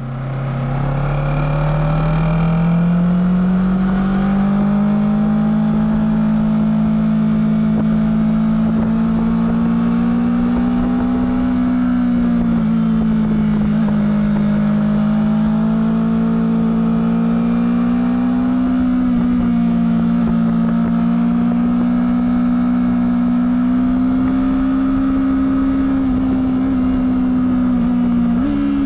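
Honda CBR250RR engine running through its stock exhaust under way, steady and loud. The pitch climbs over the first few seconds, then holds with slight dips and rises, and steps up near the end.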